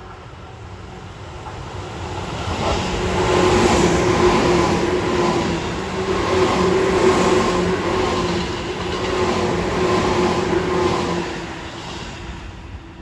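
Tobu 9000 series electric train passing at speed. The sound builds, stays loud through the middle and fades near the end, with a steady whine at two pitches over the noise of the wheels on the rails.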